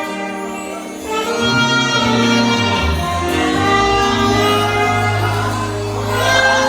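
Live worship music: a saxophone playing held melodic notes over a band, with voices singing along. A deep bass line comes in about a second in.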